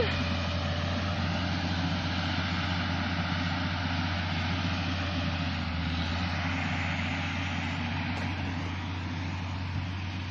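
Steady engine drone with a constant low hum, running evenly without change.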